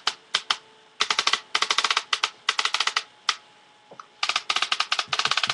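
Tippmann X7 Phenom paintball marker firing in response mode. A few single shots come first, then, about a second in, fast strings of shots follow, broken by short pauses.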